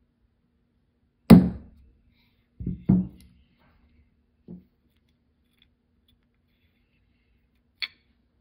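Hammer tapping a pin punch to drive the float hinge pin out of a Yamaha Moto-4 350 carburetor: one sharp metallic strike, then two quick strikes about a second and a half later and a lighter one after. A small click near the end.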